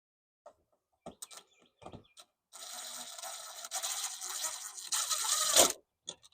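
A screw being driven through the doorbell mounting plate into the wall. A few clicks come first, then about three seconds of harsh grinding that stops suddenly, as the screw resists going in.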